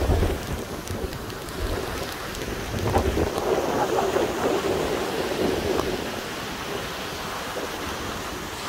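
Surf breaking and washing up the beach, with storm wind gusting across the phone's microphone in low rumbling buffets, heaviest in the first few seconds.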